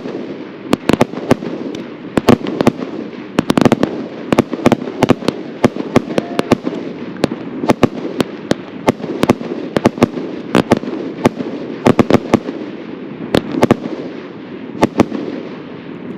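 Consumer firework cakes firing: many sharp, irregular bangs, several a second, over a continuous crackling hiss.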